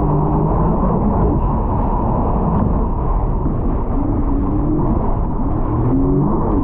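Personal watercraft engine running under a heavy rumble of wind and water, its pitch swinging up and down several times as the throttle is worked.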